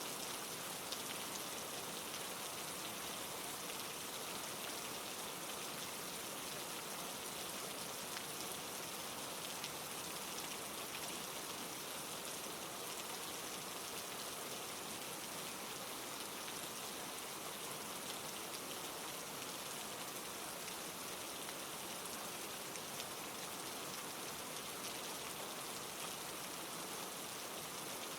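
Steady rain falling, an even hiss with a fine patter of drops that neither builds nor fades.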